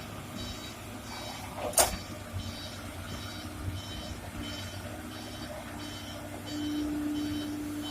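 Heavy machinery at a stone-loading site: a diesel engine running under a warning alarm that beeps steadily about one and a half times a second. A single sharp bang of rock sounds about two seconds in, and the engine note grows louder and steadier about six and a half seconds in.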